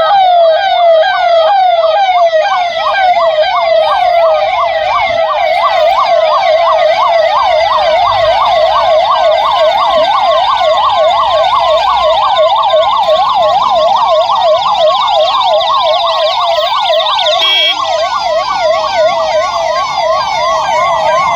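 Emergency-vehicle electronic sirens sounding in a fast yelp, each sweeping up and down a few times a second. A second siren joins about two seconds in, and the two overlap after that.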